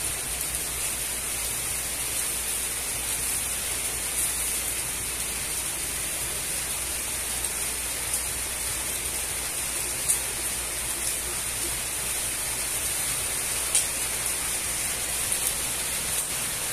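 Meat skewers sizzling steadily on a grate over hot charcoal, with a few sharp pops and crackles from the coals and dripping fat.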